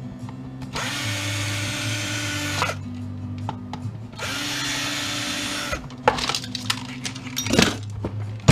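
Power drill running screws out, in two runs of roughly two seconds and one and a half seconds, followed by scattered clicks and knocks of parts being handled.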